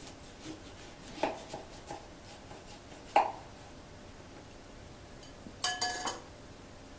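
A kitchen knife cutting through a lemon and knocking several times on a wooden cutting board, the loudest knock about three seconds in. Near the end the lemon halves and the knife clink into a glass bowl, which rings briefly.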